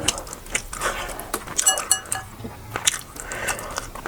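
Close-up eating sounds: a person chewing and biting food, with many small wet clicks and crunches. A short ringing clink sounds about halfway through.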